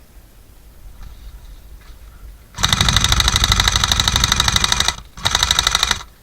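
Airsoft gun firing on full auto in two bursts: a long burst of about two seconds starting a little over two seconds in, then a shorter one of under a second, each a fast, even rattle of shots.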